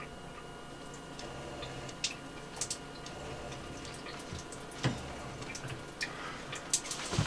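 Shower valve opened on a freshly re-plumbed line that is not yet flowing: scattered faint drips and clicks, more frequent near the end, over a steady hum. The line still holds air, which keeps the water from coming through.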